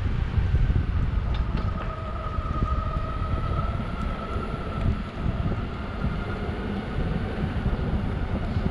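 Metroboard electric skateboard riding over pavement: a steady low rumble with a thin motor whine that rises a little around the middle and then holds.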